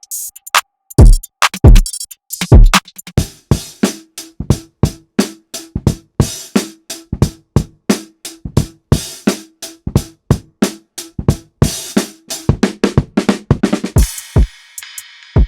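Programmed trap drum beat: 808 kicks whose pitch drops at the start, then a fast run of drum-machine hits over a held bass note, with a cymbal wash coming in near the end.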